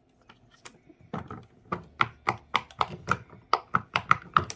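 Silicone pop-it fidget toy being pressed bubble by bubble: a quick, even run of sharp plastic pops, about three or four a second. It starts about a second in and grows louder.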